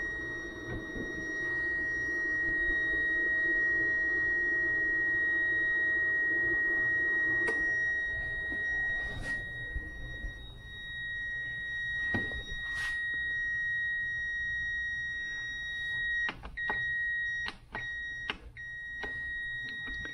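CyberPower 450 VA UPS sounding a steady high-pitched alarm tone, which breaks into short beeps near the end. The owner takes it for an overload alarm: six preheating 3D printers drawing more current than the UPS can handle. A low hum stops about eight seconds in, and a few clicks and knocks are heard.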